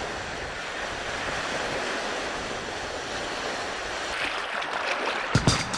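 Wind-driven waves breaking and washing on a rocky lakeshore, a steady rushing, with wind. Near the end a beat of music comes in over it.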